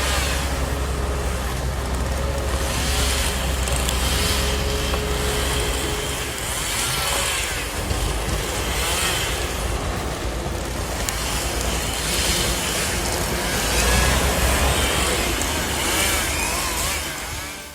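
Heavy vehicle engine running steadily under load, with a deep rumble and a noisy wash of mechanical and road noise.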